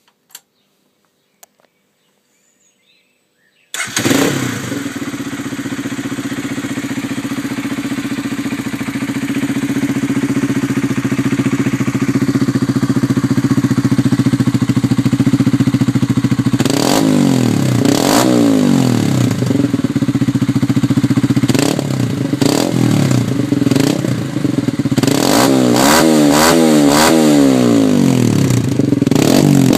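Honda CBR125R's 125 cc single-cylinder four-stroke engine, breathing through a Yoshimura slip-on exhaust, starts about four seconds in after a few faint clicks and idles steadily. Later it is revved in short blips, which come quicker and closer together near the end.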